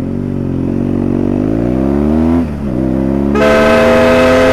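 BMW R1200GS Adventure boxer-twin engine accelerating, pitch rising, dropping at a gear change about two and a half seconds in, then rising again. A vehicle horn sounds steadily for about a second near the end.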